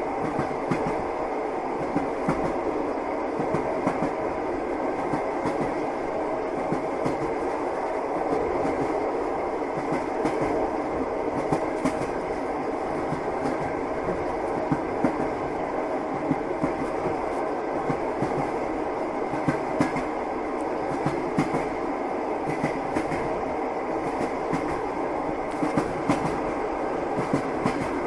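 Passenger train running along the track, heard from inside the carriage: a steady rumble of the rolling wheels with frequent sharp knocks of the wheels over rail joints.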